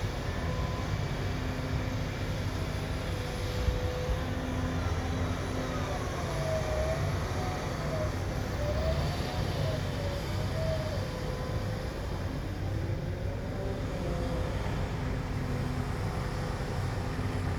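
Heavy construction machinery running: a steady low diesel rumble, with a whine that rises and falls several times in the middle.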